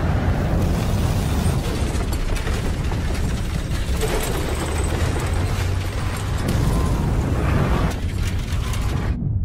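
Loud, dense film sound effects: a heavy rumble with rapid mechanical clattering and booms, cutting off suddenly near the end.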